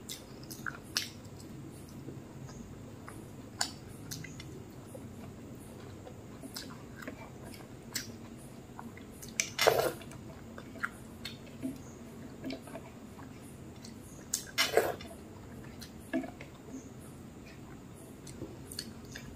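Close-up sounds of a person eating by hand: chewing and mouth clicks, with soft wet squishes as fingers work rice, dal and omelette on the plate. Two louder short bursts stand out, about ten and fifteen seconds in.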